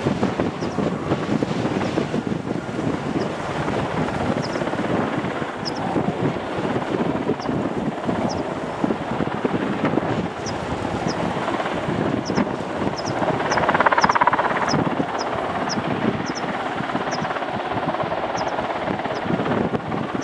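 Sikorsky S-92 helicopter lifting off into a hover and climbing, its rotor and turbines running in a steady dense rumble that swells louder briefly about two-thirds of the way through, with wind buffeting the microphone.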